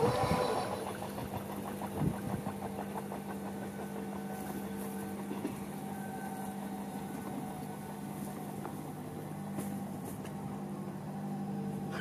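The rumble and wheel clatter of a passing electric commuter train dies away in the first second, then a steady low mechanical hum runs on, with a soft thump about two seconds in and a few faint clicks near the end.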